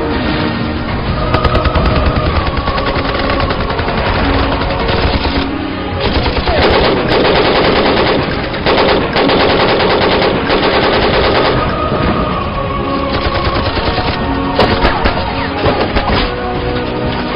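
Battle sound in a film soundtrack: rapid machine-gun fire and gunshots under music, thickest and loudest in the middle.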